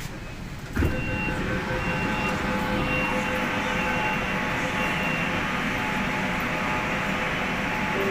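Kolkata Metro train running between stations. There is a sudden thump about a second in, then a loud, steady rumble with several steady whining tones from the train.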